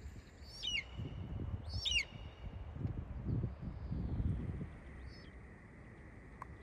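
A bird calling: two sharp, short calls sweeping down in pitch about a second apart, then a fainter one a few seconds later, over wind gusting on the microphone.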